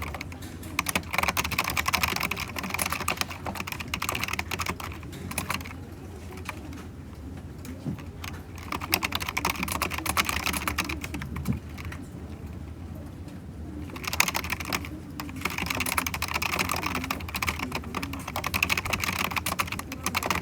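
Typing on a computer keyboard: rapid key clicks in several runs separated by pauses of a second or two, over a steady low hum.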